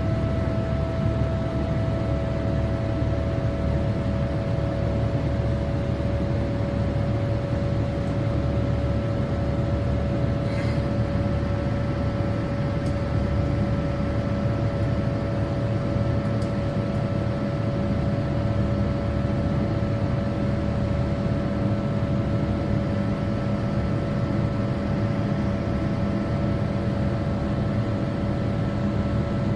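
Boeing 787's turbofan engines running at climb power, heard from inside the cabin: a steady rushing noise with a constant hum.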